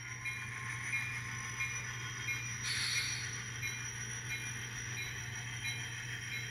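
Sound decoder of an Atlas N scale SD60 model diesel locomotive playing its prime mover sound through the model's small speaker: a steady low hum with a high whine, and a short hiss about three seconds in.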